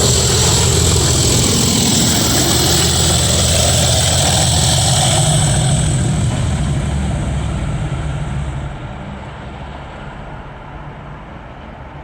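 A pair of English Electric Class 37 diesel locomotives working hard as they pull away with a train: heavy V12 engine noise with a high turbocharger whistle. It stays loud for about the first seven seconds, then fades as the locomotives draw away.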